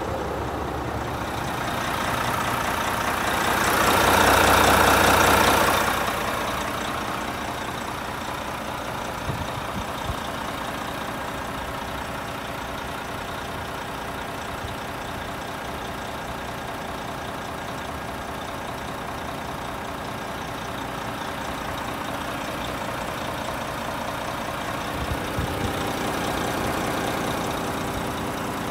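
Renault T460 tractor unit's 11-litre six-cylinder diesel engine idling steadily. A louder rushing swell rises and falls about four to six seconds in.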